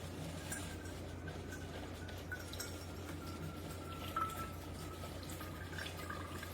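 Keurig K-Café single-serve coffee maker brewing: a faint, steady low hum with coffee trickling into the cup.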